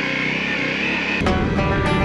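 Honda CRF250L's single-cylinder engine running with its pitch rising slowly, cut off about a second in by strummed guitar music.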